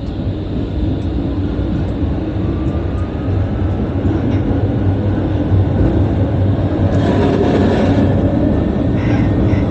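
Tram running along the street, heard from the driver's cab: steady low rumble of wheels on rails and running gear, slowly growing louder, with a faint whine rising slightly in pitch about three to four seconds in and a brief hiss about seven seconds in.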